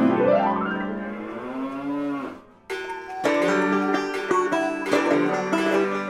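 Background music. A long sliding tone that rises and then wavers fades out about two and a half seconds in, and a plucked-string tune starts just after.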